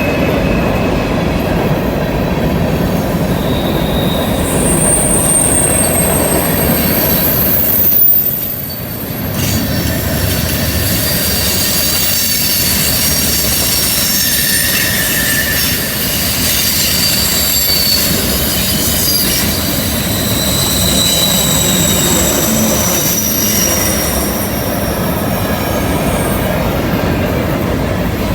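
Freight cars rolling through a curve: a steady rumble of wheels on rail under high squealing from the wheel flanges, several squeal tones at once drifting in pitch, with a brief dip in loudness about eight seconds in.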